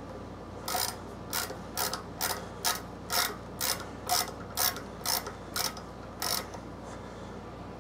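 Ratcheting tap wrench clicking about a dozen times, roughly two clicks a second, as it turns a helicoil installing tool that drives a thread insert into stripped aluminum threads.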